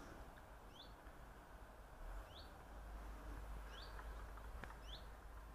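A bird calling faintly: short rising chirps, about five of them, repeated roughly once a second over a low steady background hiss.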